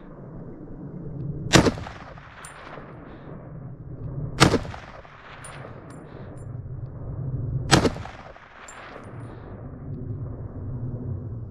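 Three shots from a .30-06 hunting rifle, about three seconds apart, each followed by a short echo and, about a second later, a faint high metallic click.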